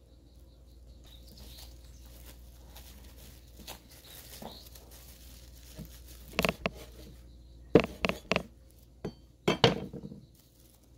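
Cling wrap rustling and crinkling as a tortilla wrap is rolled up tightly in it. This is followed by several sharp knocks and clicks of the wrapped roll and plastic against a wooden cutting board, the loudest in two clusters near the end.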